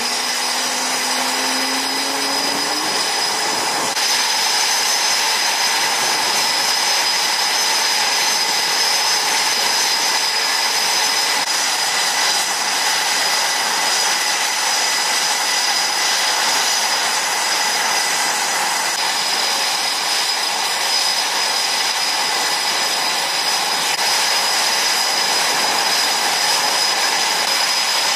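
Blue Angels F/A-18E/F Super Hornet jet engines (F414 turbofans) idling: a steady rushing noise with a high, even whine that holds one pitch throughout.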